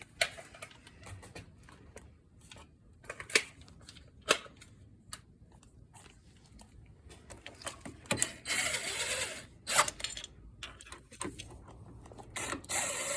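Ratchet wrench running 10 mm bolts down on an ATV's rear brake cover: a few sharp clicks and knocks of metal tools, then two runs of fast ratcheting, one past the middle and one near the end.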